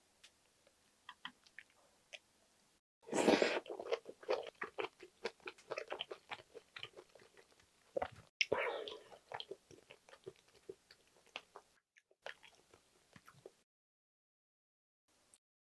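Close-miked eating sounds: wet, smacking chewing of a mouthful of pork belly and kimchi braise, loudest in two spells about three and eight seconds in, then quieter chews, with a brief cut to dead silence near the end.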